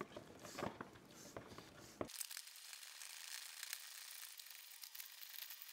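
Katadyn Hiker Pro hand-operated filter pump being worked: faint plastic clicks of the pump strokes and crinkling of the soft plastic filter pouch. About two seconds in, the sound thins abruptly to a faint crackly hiss with rapid small ticks.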